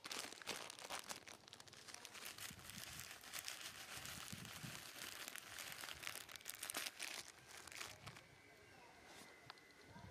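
Close, dense crinkling and crackling, like material being crumpled or handled, for about eight seconds, then dying down to a faint steady high tone near the end.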